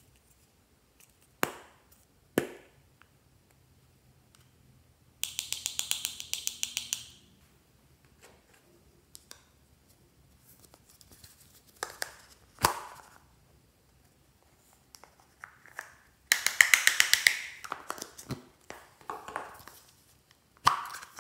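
Small gold plastic containers handled and opened by hand: sharp clicks and taps of the plastic, and twice a burst of fast clicking lasting about two seconds.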